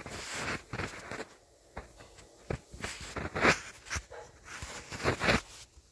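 Handling noise close to the microphone: a DC power cable and barrel-plug adapter fumbled in one hand over a fleece blanket, rustling and bumping in irregular bursts, the loudest about three and a half and five seconds in.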